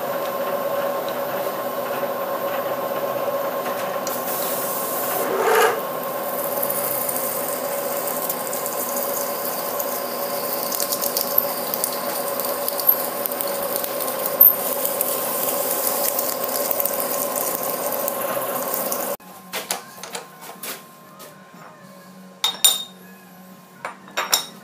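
Bridgeport milling machine's spindle running with a steady hum while a drill bit cuts into an aluminium block, a hiss of cutting over it from about 4 s. The machine sound cuts off abruptly about 19 s in, leaving light clinks and knocks of the metal part being handled in the vise.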